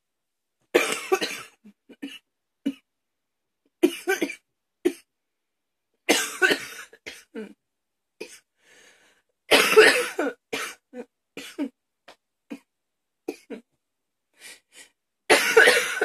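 A woman coughing hard in five bouts. Each bout opens with a loud cough and trails off into several shorter, quieter coughs and breaths.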